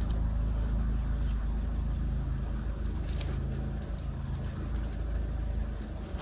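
Steady low background hum, with a few faint light ticks.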